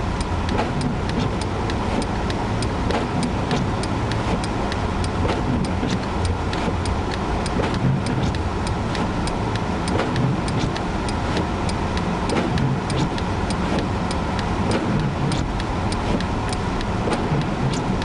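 Car cabin noise while driving through a blizzard: a steady low rumble from the engine and road. Frequent sharp ticks sound throughout.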